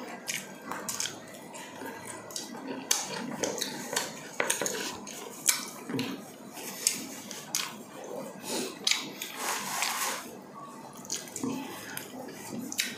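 Close-up eating sounds: chewing and mouth clicks, with irregular light clinks and clatter against plates as food is picked apart by hand.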